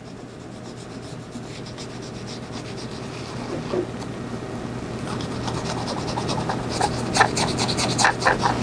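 A bristle paintbrush scratching over grained leather as penetrating leather dye is brushed on, in short repeated strokes that grow louder and closer together in the second half.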